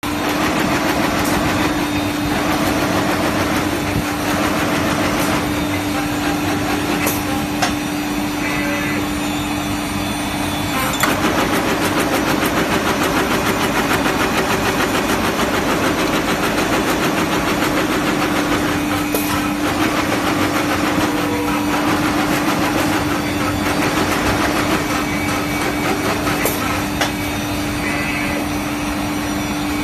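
Automatic drill-brush making machine running: a steady mechanical hum with a constant tone, broken by occasional sharp clicks and knocks from its moving parts. The noise steps up slightly about eleven seconds in.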